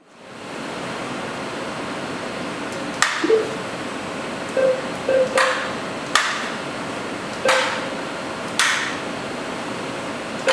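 A series of sharp knocks over a steady hiss, roughly one every second or so, some followed by a short ringing tone.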